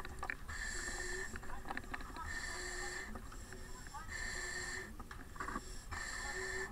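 A firefighter breathing hard through an SCBA facepiece, four breaths about one every 1.7 seconds, each with a whistling hiss from the air regulator. Brief knocks of gear come in between.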